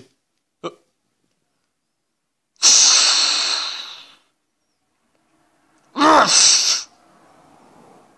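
Cartoon sound effects played through a TV speaker: a loud crash that dies away over about a second and a half as the ring's corner post is punched through, then about two seconds later a short raspy outburst with a wavering pitch.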